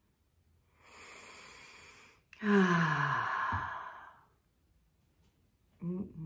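A person draws a deep breath in, then lets it out in a long voiced sigh that falls in pitch. A short voiced sound follows near the end.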